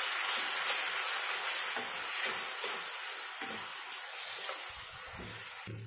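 Onion-and-spice masala frying in hot mustard oil in a steel kadhai, a steady sizzle, with a spatula scraping the pan as ginger-garlic paste is stirred in. The sizzle eases a little toward the end and cuts off just before it.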